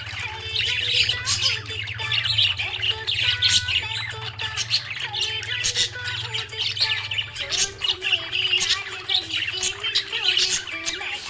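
Budgerigars chirping and squawking in a fast, continuous stream of short high calls.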